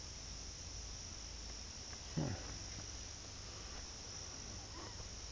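A steady, high-pitched chorus of crickets or katydids in woodland. About two seconds in there is one short, louder voice-like sound.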